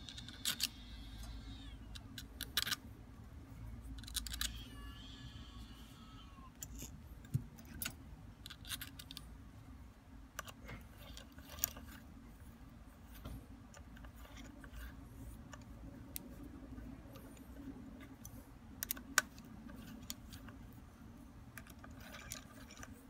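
Small screws and tools being handled during air rifle reassembly: sporadic light metallic clicks and taps over a low steady hum.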